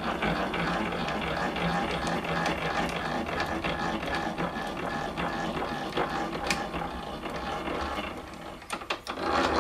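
Drill press knee table being wound down its ballscrew by hand: a steady mechanical whirr from the screw and the linear-rail carriages, stopping near the end, followed by a few clicks.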